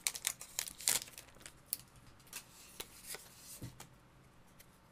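Foil wrapper of a Pokémon booster pack crinkling and tearing as it is opened, with a few sharp crackles in the first second, then lighter rustles and clicks of cards being handled that die away after about four seconds.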